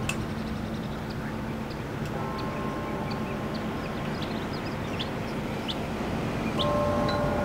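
Outdoor ambience: small birds chirping in short, scattered calls over a steady low rumble. A faint chord of held steady tones comes in about two seconds in, fades, and returns near the end.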